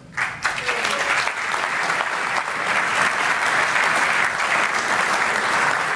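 Audience applauding, breaking out right at the start and holding steady.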